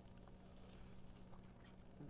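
Near silence over a steady low hum, with a few faint soft clicks from eating instant ramen noodles: the forkful taken into the mouth and chewed.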